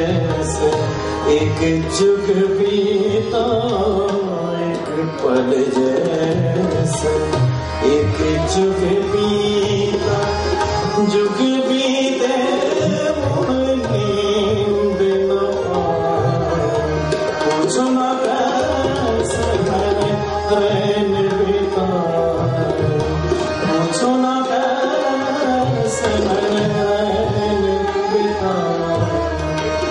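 Live ghazal music: tabla playing a steady rhythmic pattern under harmonium, with a male voice singing the melody.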